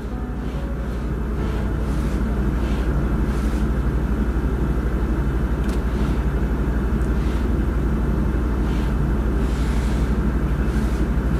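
Deep, steady rumbling drone with a dense noisy texture, swelling over the first couple of seconds and then holding, with faint soft swishes recurring over it.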